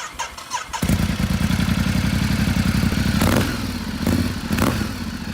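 A motor running with a fast, even pulse, swelling briefly twice, after a few light clicks at the start.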